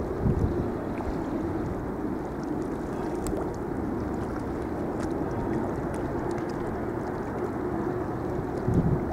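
Harbour water lapping and sloshing over a steady low rumble, with two dull low thumps, one just after the start and one near the end.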